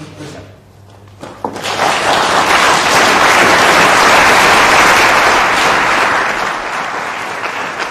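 Audience applauding. It starts about a second and a half in, swells to a loud peak and eases slightly toward the end.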